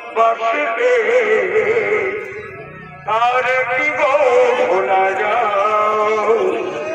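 Chhau dance music: a long, wavering melody line over a steady drum beat, pausing briefly about three seconds in before starting again.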